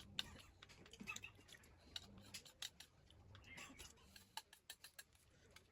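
Faint, irregular small clicks and taps, several a second in places, over a low background hum.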